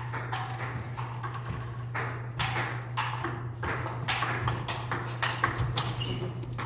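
Table tennis rally: the ball clicks sharply off the paddles and the table in quick alternation, about two or three hits a second, over a steady low hum in the hall.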